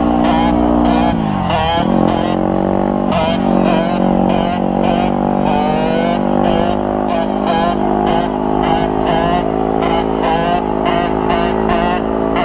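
Dirt bike engine running hard, its revs dipping and climbing back a little under two seconds in.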